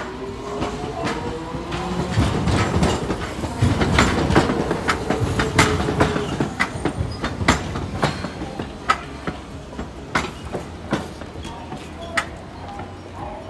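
Hiroshima Electric Railway Green Liner articulated tram rolling in over the track points, its wheels clacking in a rapid run of sharp clicks. A low tone falls slightly in pitch over the first half, and the clacks thin out towards the end as the tram slows.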